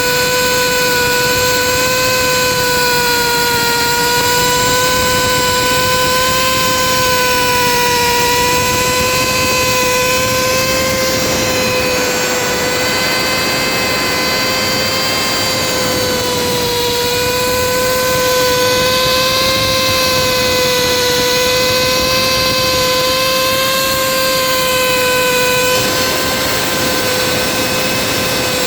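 In-situ crankpin grinding machine running on a marine diesel crankshaft, a steady high-pitched motor whine over rough machinery noise. A harsher grinding hiss joins about a third of the way in and drops away near the end.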